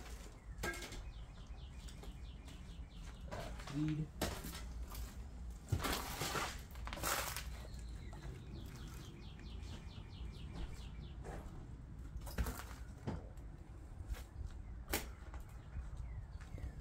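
Irregular footsteps, scuffs and knocks of people moving through an empty room, with faint birds chirping.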